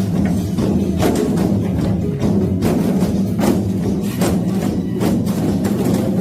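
Music with percussion: steady low tones under sharp percussive hits about once a second.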